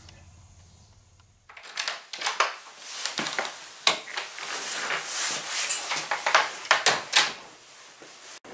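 Irregular clicks, knocks and rustling of handling in a small room, after a faint low hum that cuts off about a second and a half in.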